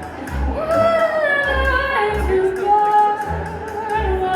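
Live music: a woman singing long held notes that slide between pitches, with bass notes underneath.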